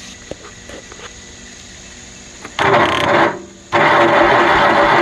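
Kohler 20 HP Magnum engine being cranked by its electric starter: a short burst of cranking a little over halfway in, a brief pause, then steady cranking that keeps going, without the engine catching.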